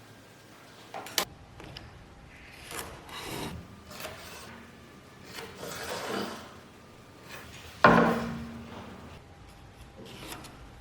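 Pieces of 2x4 softwood being worked by hand: a few irregular rubbing, scraping strokes on the wood. There is a small click about a second in and one sharp, loud knock about eight seconds in that rings briefly.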